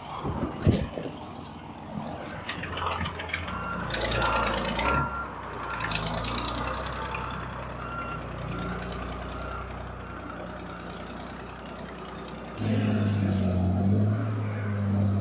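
Tigercat 718's diesel engine running just after a cold start, with a high-pitched alarm beeping on and off. About twelve and a half seconds in, the engine gets louder and heavier, as if revved or put under load.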